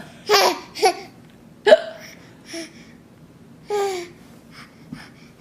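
A young child hiccuping and laughing: short, sharp hiccups mixed with brief laughing squeals, about five bursts in all, the loudest about a second and a half in and a longer laugh near the four-second mark.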